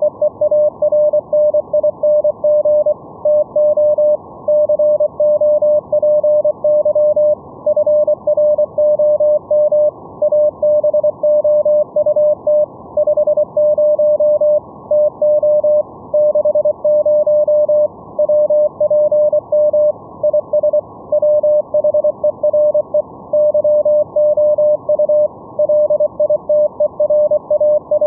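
Morse code (CW) signal relayed as VLF RF over IP and demodulated by an SDR app: a single steady beep keyed on and off in quick, continuous dots and dashes. It sits over a constant band of receiver hiss with a sharp top cut-off.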